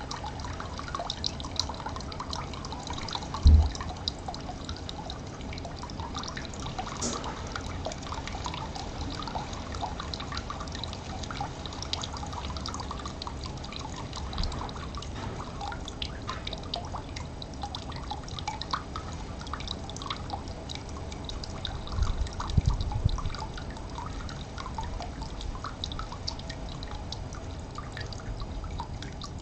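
Water dripping and trickling, with many small plops and drips scattered throughout. A single low thump about three and a half seconds in is the loudest sound, and a short cluster of low bumps comes about twenty-two seconds in.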